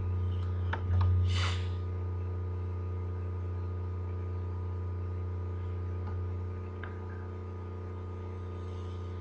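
Steady low electrical hum with faint higher tones, picked up by the recording microphone, with a few sharp mouse clicks about a second in.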